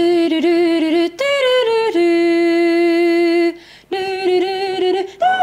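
A voice singing a short melody with no accompaniment: a few quick notes, then one long steady held note, a brief break, and more notes toward the end.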